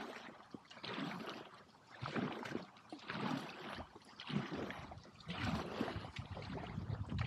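Kayak paddle strokes: the blades dip and pull through the lake water with splashing and dripping, about one stroke a second.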